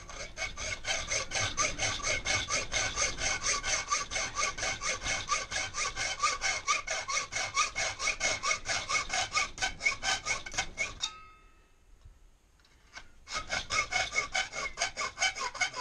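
Hand hacksaw cutting thin aluminium sheet in rapid, even back-and-forth strokes, each carrying a steady ringing tone. The sawing stops about eleven seconds in and starts again about two seconds later.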